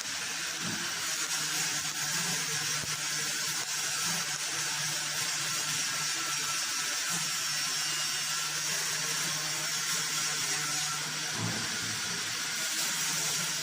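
TIG welding arc burning steadily: an even hiss with a low electrical hum underneath.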